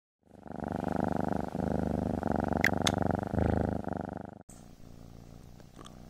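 Devon Rex kitten purring, a loud rhythmic purr that breaks and restarts with each breath, with two brief clicks midway. About four and a half seconds in it cuts off suddenly to a much fainter purr.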